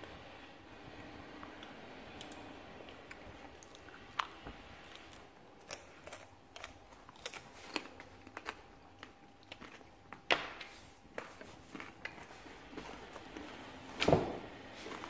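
Scattered light clicks and taps of coloured pencils and a sheet of paper being handled on a table, with a louder knock near the end.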